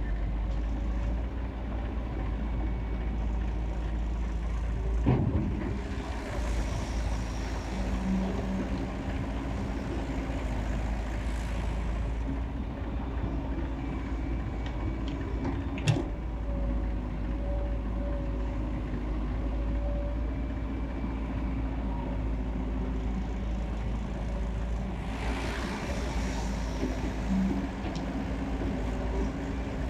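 Excavator diesel engine running steadily. Two sharp knocks come about five and sixteen seconds in, and there are stretches of hissing.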